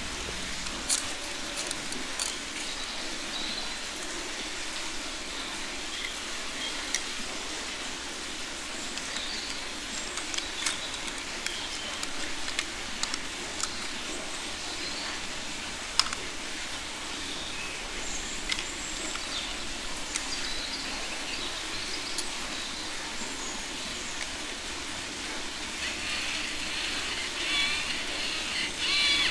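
Steady background hiss with scattered light clicks of plastic toy parts being picked up and set down.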